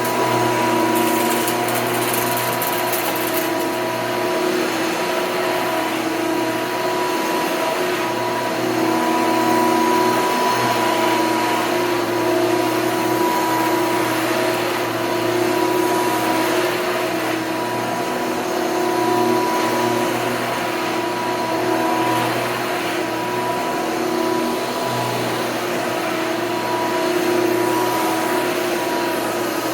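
Hoover upright vacuum cleaner running continuously, its motor whine holding a steady pitch over a rushing of air, with slight swells in loudness.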